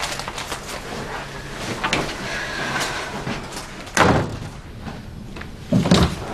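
Door sounds: a sharp knock-like bang about four seconds in, then a heavier, deeper thud near the end.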